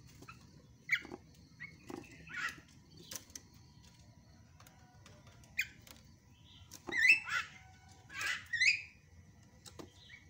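Javan myna chattering: a string of short, harsh, squeaky calls with gaps between them, the loudest about seven and eight and a half seconds in.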